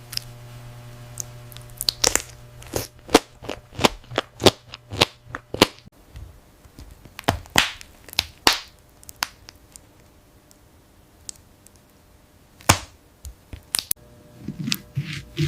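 Crisp, sharp cracks and snaps of aloe leaf in close-miked food ASMR: a quick run of about a dozen in the first six seconds, a few more in the middle, and two near the end. A faint steady hum sits under the first six seconds.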